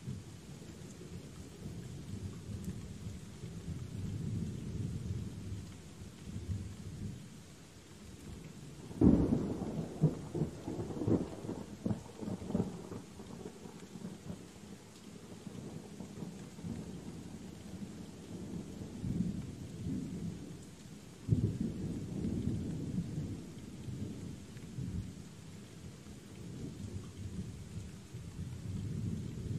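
Steady rain falling, with thunder rumbling low beneath it. A sharp thunderclap breaks about nine seconds in and rolls on for a few seconds, and another clap comes about twenty-one seconds in.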